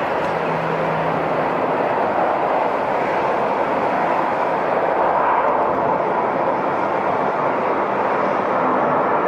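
Airliner engines running, a loud steady rush of noise, with a faint whine coming in near the end.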